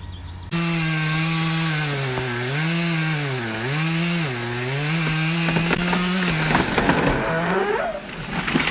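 Chainsaw cutting at high speed, starting abruptly about half a second in. Its pitch dips several times as the engine is loaded by the cut, then turns rough and ragged near the end.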